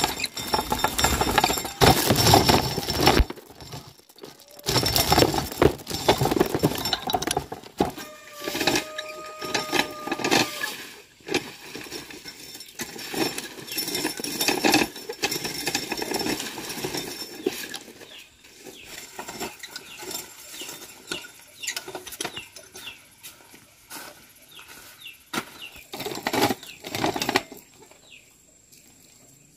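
A hand-cranked cast-iron corn sheller stripping kernels off dry cobs: a rattling, grinding clatter as the toothed disc turns and the kernels spray off, densest in the first few seconds, then coming in uneven bursts as each cob is fed in.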